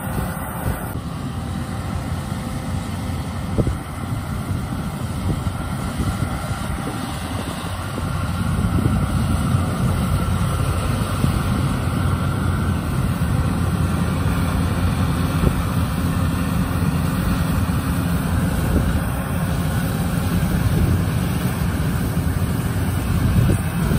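Yanmar YH850 rice combine harvester running under load as it cuts and threshes rice: a steady diesel engine and machinery drone that grows louder about eight seconds in.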